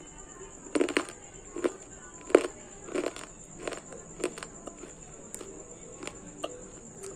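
Multani mitti (Fuller's earth clay) being bitten and chewed: a run of crisp mouth crunches, about one every half to three-quarters of a second. They are loudest in the first few seconds and fade to fainter chews near the end.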